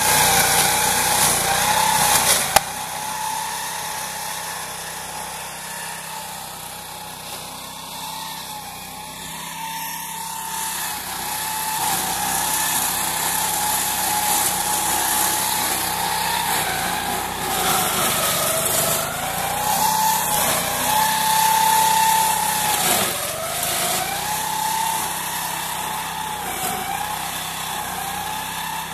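Engine of a prototype meadow-mowing and shredding machine running steadily. Its pitch dips briefly several times near the end.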